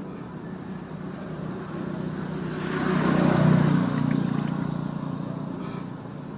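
A motor vehicle passing by: an engine hum with a rush of noise that builds to a peak about halfway through, then fades away.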